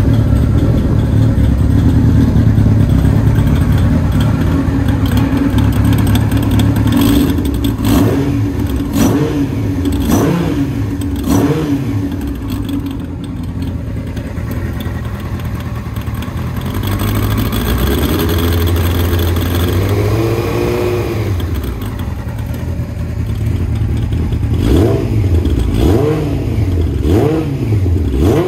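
Yamaha YZF-R1 (RN04) 998 cc inline-four running on a K-Factory titanium full exhaust and Keihin FCR41 carburettors with open funnels. It idles steadily, then takes a run of quick throttle blips about a third of the way in, a slower rev a little past halfway, and more quick blips near the end.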